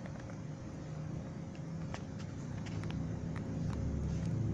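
Steady low background rumble with a faint steady hum and a few light clicks, growing slightly louder toward the end.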